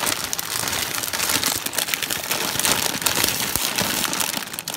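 Dry pasta poured from a crinkling plastic bag into a pot of boiling water: a steady, dense crackle and hiss with many small ticks.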